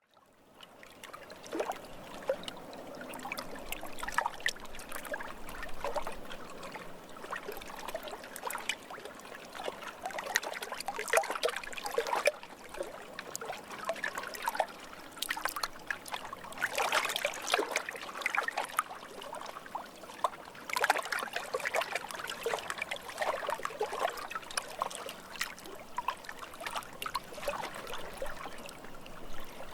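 Lake water lapping and trickling in many small, irregular splashes and gurgles over a steady wash, busier in some stretches than others.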